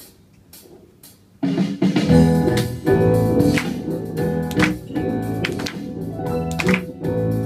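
A song begins on double bass about a second and a half in, loud and sudden after near quiet, with sharp percussive hits over it.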